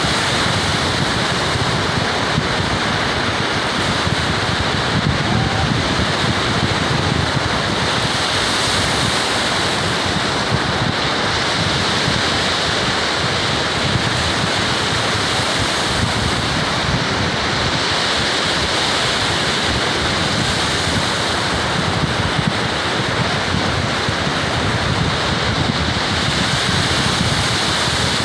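Ocean waves breaking as steady surf, with wind blowing across the microphone.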